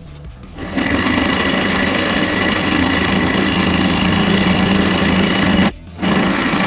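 A handheld power tool runs steadily and loudly for about five seconds, stops, then runs again for a short burst near the end.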